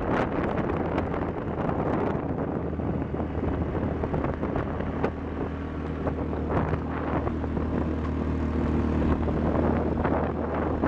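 ATV engine running steadily with a low drone as it is ridden along a dirt road, with wind buffeting the microphone.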